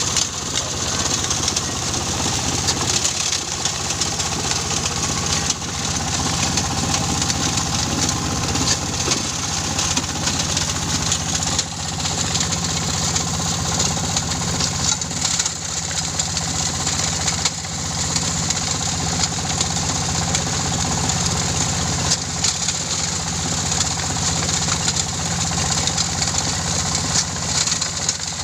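Coral-stone grinding machine running steadily: a constant engine drone under a dense grinding noise.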